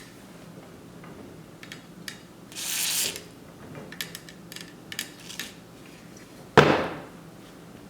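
Steel pipe and threaded fittings being handled during assembly: a short hiss about two and a half seconds in, scattered light clicks, then one loud metal clank near the end.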